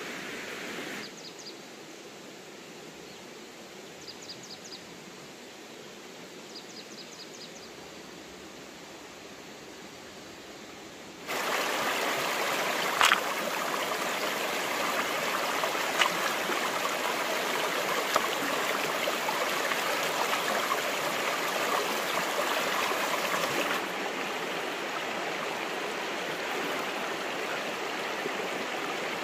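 Stream water running and babbling, its level jumping up and down abruptly as the shots change, loudest in the middle stretch. A few short high chirps in quick groups sound in the quieter opening part, and a few sharp clicks in the louder middle.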